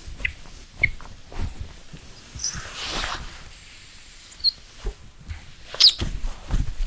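A sponge rubbing chalky whiting paste over a glass cooktop: scattered short squeaks and scuffs of the sponge on the glass, with a few duller knocks near the end.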